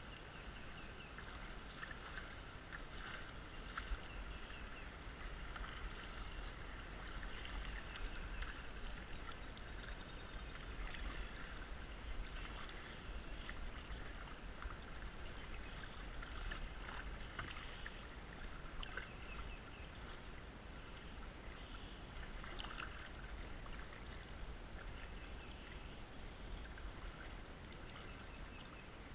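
Creek water sloshing and gurgling against a kayak's hull as it moves downstream, with small splashes from paddle strokes dotted through, over a steady low rumble.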